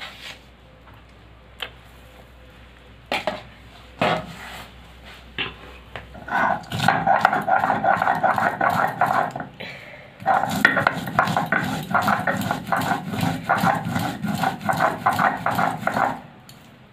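Stone roller crushing oil-fried peanuts on a flat grinding stone (sheel-nora): a few light knocks, then from about six seconds in a run of rapid crunching, scraping strokes, with a short pause about ten seconds in.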